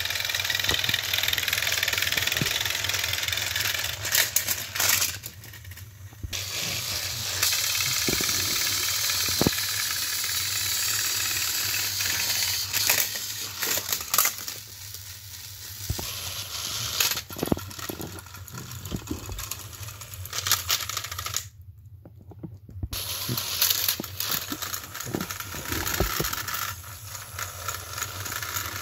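Battery-powered Thomas & Friends toy train engines running coupled together on plastic track, their small electric motors whirring steadily, with scattered plastic clicks and rattles from the toys being handled. The whirring cuts out briefly twice.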